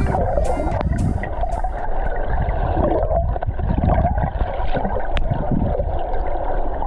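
Muffled underwater rumble and gurgling of moving water heard through a camera's underwater housing, with a single sharp click about five seconds in. The beat of a music track runs on for the first two seconds, then stops.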